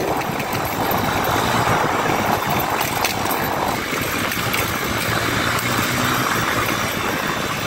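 Mondial 150 KT motorcycle engine running steadily under way, with wind rushing over the microphone.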